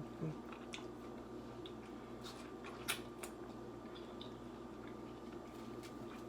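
A person biting into and chewing watermelon, giving scattered crisp, wet squishing clicks over a steady low hum, with the sharpest one about three seconds in.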